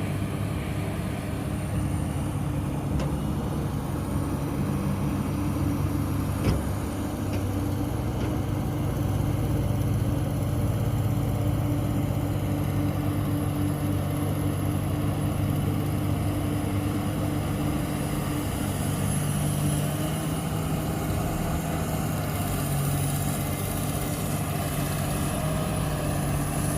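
Heavy diesel engine of earthmoving machinery running steadily, its pitch shifting slightly about eight seconds in and again near the end, with a few light clicks in the first seven seconds.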